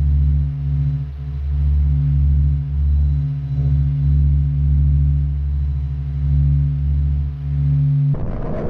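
Deep, steady electronic drone of a few held low tones that swells and fades unevenly: a NASA planetary recording of space electromagnetic waves converted into audible sound. About 8 seconds in it stops abruptly, and a rushing, roar-like noise begins.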